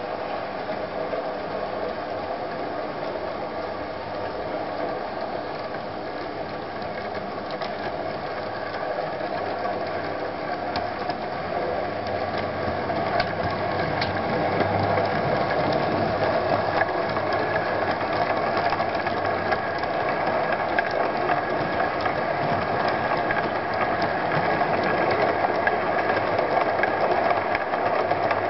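Model railway train running: the locomotive's small electric motor whirring and its wheels clicking over the rail joints, getting louder about halfway through as the train passes close by.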